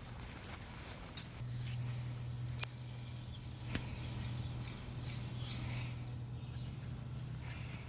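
Small birds chirping, short high calls every second or so, over a steady low hum. A couple of sharp clicks come about three seconds in, the first the loudest sound.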